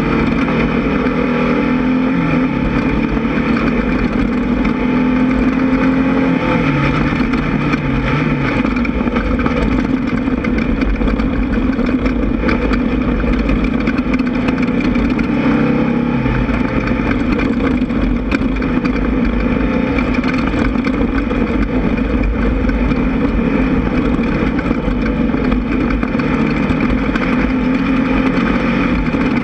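Air-cooled VW 1600 engine of an off-road race buggy running hard, its revs rising and falling through the first several seconds, over a constant rumble and clatter.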